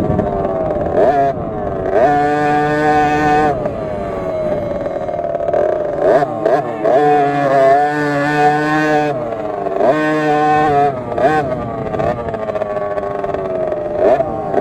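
KTM SX50 minibike's 50cc two-stroke engine heard close up, revving up and down with the throttle: the pitch climbs and holds at full throttle twice, then drops back off between them.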